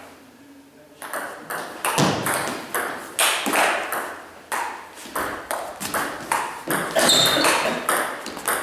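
Table tennis rally: the celluloid ball clicking off the bats and the table, roughly three hits a second, starting about a second in after a brief quiet moment.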